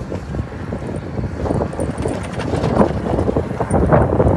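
Wind buffeting the microphone and a bicycle rattling along a wet, slushy street, with many small irregular knocks from the bumpy ride.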